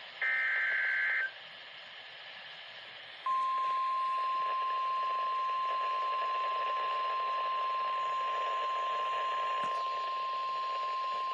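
Weather-radio alert tones heard through a radio receiver with background hiss. First comes a single loud burst of SAME digital header data, about a second long. About three seconds in, the steady single-pitch 1050 Hz NOAA Weather Radio warning alarm tone starts and holds to the end, marking the start of a severe thunderstorm warning.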